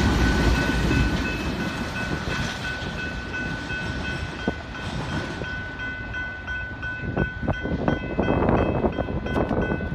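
Freight train rolling past: a heavy rumble of wheels on the rails that eases after the first second or so. A steady high ringing tone sounds throughout, and sharp wheel clicks over the rail joints come in the second half.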